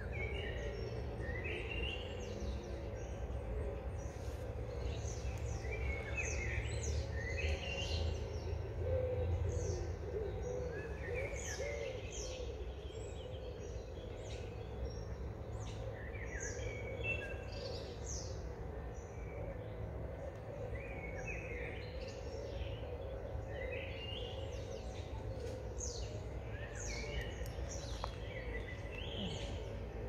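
Songbirds singing, short chirping phrases repeating throughout, over a steady low rumble that eases about ten seconds in.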